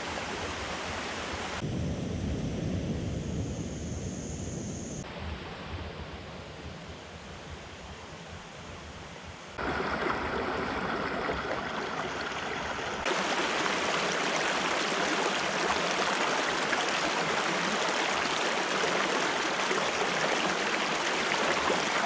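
Shallow creek running over rocks: a steady rush of water that shifts abruptly in tone and loudness a few times, louder from about ten seconds in.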